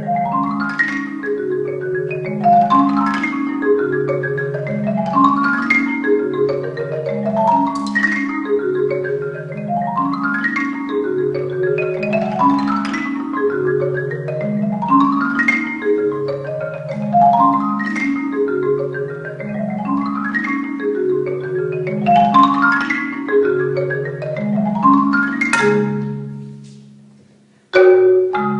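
Percussion ensemble playing tuned mallet instruments: held low notes under a quick upward run of notes that repeats about every two and a half seconds. Near the end the sound fades away, then the playing starts again abruptly.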